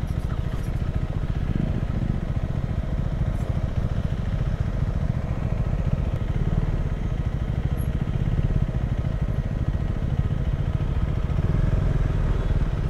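Motorcycle engine running steadily while riding, getting a little louder near the end.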